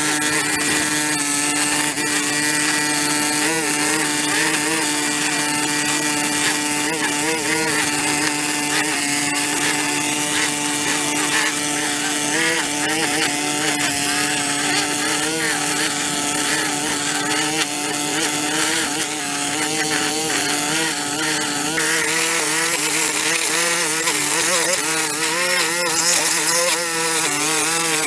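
Small engine-driven power tool running at high speed and holding a steady pitch. Near the end the pitch starts to waver up and down.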